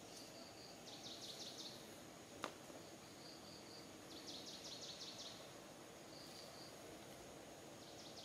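Faint outdoor ambience with high-pitched wildlife chirping that repeats every few seconds: a group of three short notes, then a rapid trill of six or seven strokes. A steady high hum runs underneath, and a single sharp click comes about two and a half seconds in.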